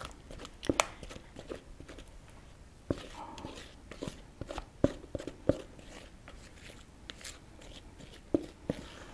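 A spatula scraping cake batter out of a mixing bowl into cake pans, with irregular sharp knocks of the spatula against the bowl and softer scrapes in between.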